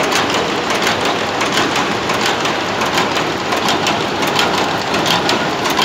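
YKHMI ZK-820-1 automatic hangtag-making machine running: a dense mechanical clatter of rapid, irregular clicks over a steady noisy wash.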